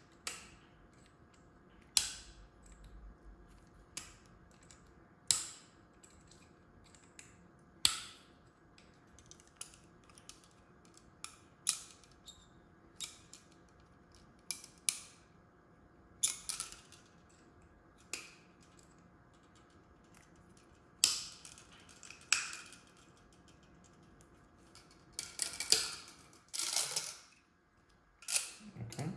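Sharp plastic clicks and snaps at irregular intervals of a second or two, from small hose-fitting parts (a cap and spring) being worked by hand, with a quicker run of clicks near the end.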